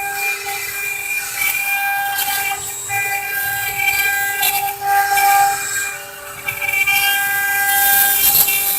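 CNC stone engraving machine running, its motors giving off steady whining tones that switch on and off every second or two over the hiss of the cutting.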